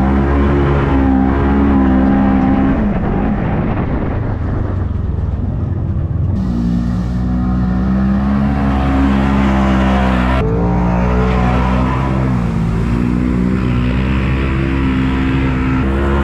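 Polaris RZR 1000 side-by-side's engine revving and easing off under throttle as it drives through mud, its pitch rising and falling. The sound changes abruptly about six and about ten seconds in.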